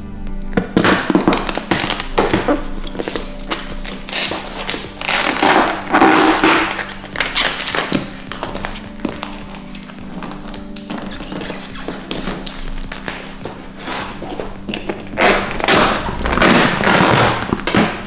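Clear plastic protection film crackling and tapping as it is handled and pressed along a car body panel edge, in irregular bursts, over background music.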